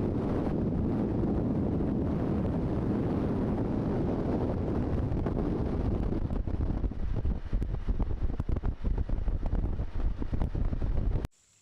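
Wind buffeting the microphone: a heavy, low rumble that turns choppy and gusty in the second half, then cuts off suddenly near the end.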